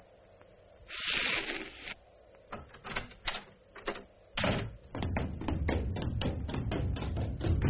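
Cartoon sound effects: a short burst of hiss about a second in, then scattered taps and knocks that become a dense, irregular clatter of heavier thuds from about halfway.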